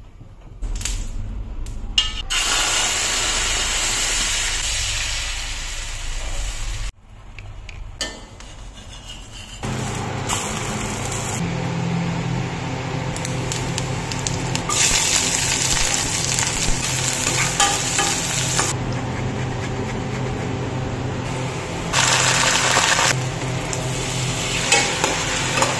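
Oil sizzling in a nonstick frying pan on a gas stove as onions and red chillies fry and are stirred. It comes in several short takes that start and stop abruptly.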